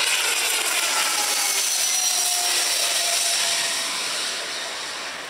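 Business jet's engines passing low overhead on landing approach: a loud rushing roar with a whine that slides down in pitch as it goes by, easing off near the end.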